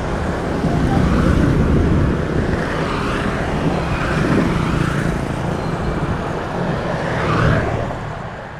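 Road traffic of motorbikes and cars passing: continuous engine and tyre noise that swells as vehicles go by, fading out near the end.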